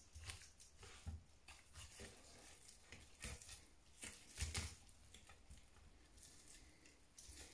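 Faint soft cutting and tearing of a knife slicing breast meat off a cooked chicken carcass and hands pulling it away, with scattered light clicks.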